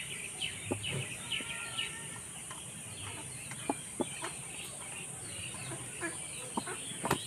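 Chickens clucking in the background, short faint calls on and off. There are also a few sharp clicks, likely the knife tip touching the steel bowl while scoring a raw chicken.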